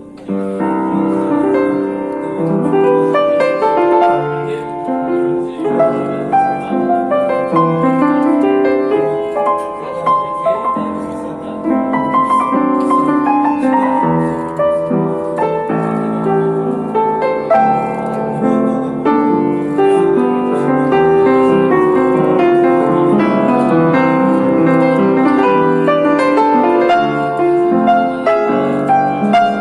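Piano playing a slow, melodic instrumental with sustained chords under a single-note melody.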